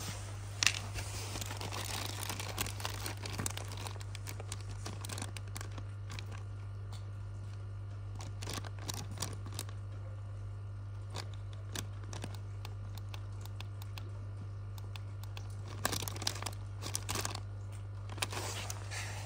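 Clear plastic bag around an Aquael pond unit crinkling and crackling as it is handled, most busily at the start and again near the end, over a steady low hum.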